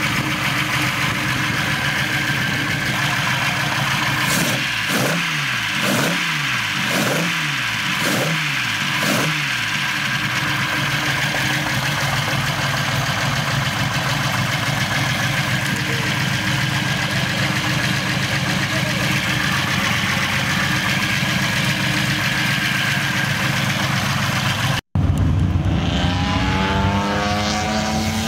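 Nissan Laurel SGX (C130) straight-six on triple sidedraft carburettors idling, then blipped five times in quick succession about 4 to 10 seconds in, each blip rising and falling back. After a sudden break near the end, the engine is heard again with the revs climbing.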